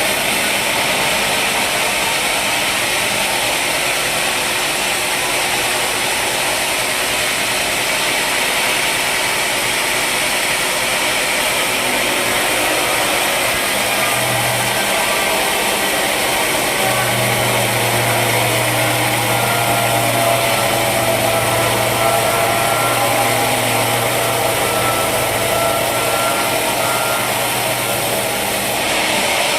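Sawmill machinery running steadily, a saw and its motor at work on wood. A low hum joins in about halfway through and drops away near the end.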